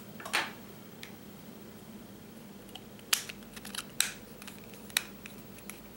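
A handful of light, sharp clicks and taps, spread unevenly, from the flight controller board and its plastic case being handled, with a faint steady hum underneath.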